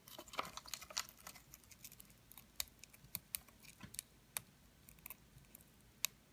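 Light, irregular clicks and scratches against a clear plastic tarantula enclosure as feeding tongs and a feeder insect meet it. A quick flurry of clicks in the first second or so, then single sharp ticks every half second or so.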